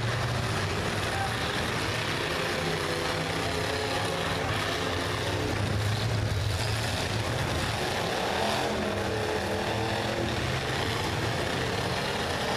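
Several demolition derby cars' engines running together in a steady, loud din, their pitch shifting now and then as they rev.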